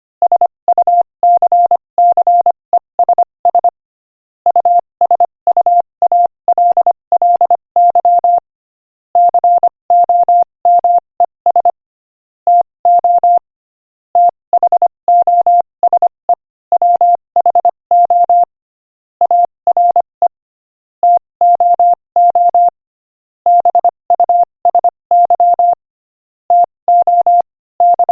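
Morse code at 25 words per minute: a single steady beep tone keyed on and off in quick dots and dashes. The dots and dashes come in groups separated by short pauses between words.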